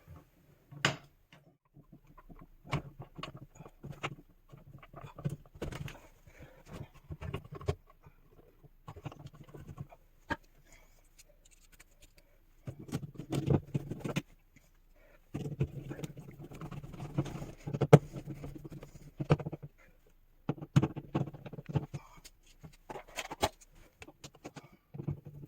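Clicks, knocks and scrapes of a GFCI outlet being pushed back into its electrical box, screwed in and fitted with a cover plate, with one sharp click standing out about two-thirds of the way through. A low drone comes and goes in several stretches of a second or more.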